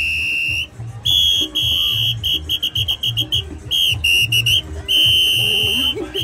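A whistle blown hard in long blasts, then a run of quick short toots, then long blasts again, over music with a steady bass beat.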